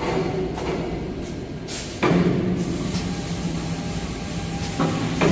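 Small kitchen-towel rewinding production line running: a steady machine hum and clatter, jumping suddenly louder with a clunk about two seconds in and again near the end.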